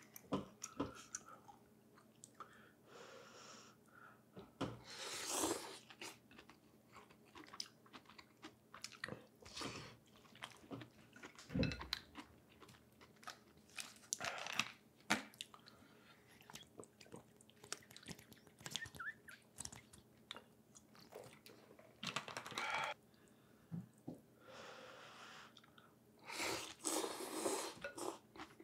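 Person eating pho close to the microphone: chewing and biting, with scattered small clicks and about half a dozen noisy slurps of a second or so each.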